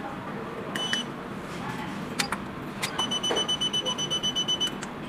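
Daytech wireless coaster restaurant pager beeping: one short high beep about a second in, a few light clicks of buttons being pressed, then a rapid run of about a dozen beeps at the same pitch, roughly seven a second, for under two seconds. This is the pager's buzzer reminder sounding.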